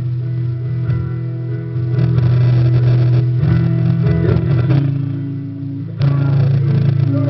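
A song playing, led by guitar with bass underneath.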